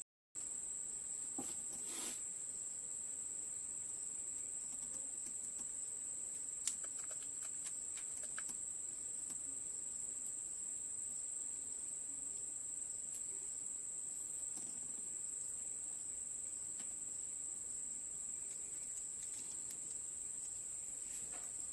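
Steady high-pitched drone of insects (crickets or cicadas), with a few faint light taps and clicks and one sharper click about seven seconds in.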